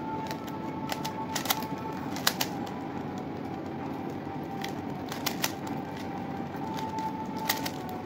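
Rubik's cube being turned by hand: irregular plastic clicks and clacks as its layers snap round, some coming in quick pairs. A faint steady high hum lies under them.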